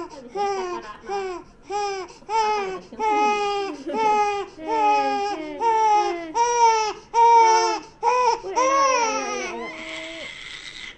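A three-month-old baby crying hard in short, rhythmic wails from the pain of vaccine injections. The wails come about two a second at first and grow longer in the middle, then trail off into a breathy sound near the end.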